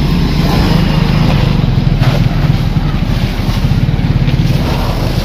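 An engine running steadily with a low, fluttering rumble, over the hiss of a hose jet spraying water.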